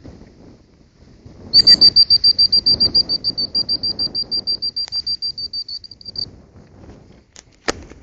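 A high whistle trilled in a fast, even series of short pulses at one pitch, about nine a second, for nearly five seconds, slowly fading. A single sharp click near the end.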